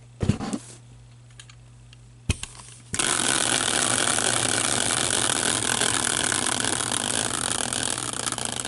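Prize wheel spun by hand, its pointer clicking rapidly against the pegs, the clicks spacing out as the wheel slows near the end. A thump comes just after the start and a single knock a little after two seconds, before the clicking begins about three seconds in.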